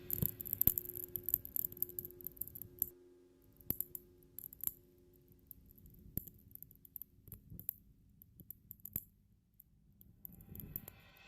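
Scattered light clicks and taps, sparse and irregular, with faint steady low tones under them for the first three seconds.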